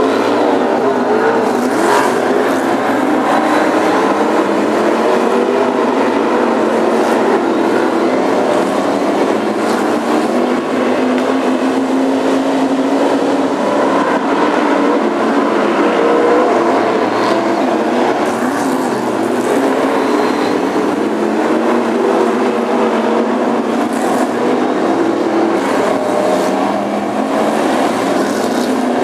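A pack of BriSCA F1 stock cars' V8 engines racing around a shale oval. Several engines overlap in a continuous loud drone that rises and falls in pitch as the cars accelerate out of the bends and pass.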